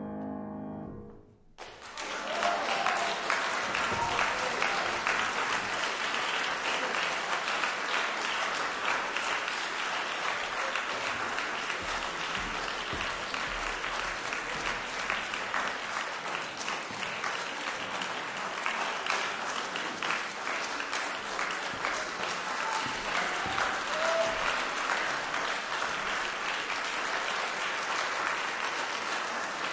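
A grand piano's last notes sound for about a second and a half and cut off. From about two seconds in, an audience applauds steadily through to the end.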